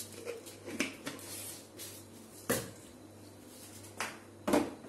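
Short knocks and clicks of kitchen containers being handled and set down on a counter, about four in all with the loudest two near the end, over a faint low steady hum.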